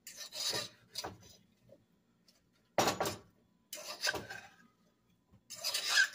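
A spoon scraping and knocking against a pot as potatoes and Brussels sprouts are tossed in it, in about five short bursts with brief pauses between them.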